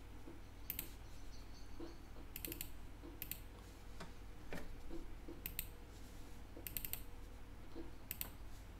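Faint computer mouse clicks at irregular intervals, often two in quick succession, over a faint steady hum.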